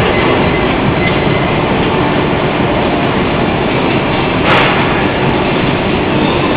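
Loud, steady rumbling noise with no rhythm or tone, broken by one short hiss about four and a half seconds in.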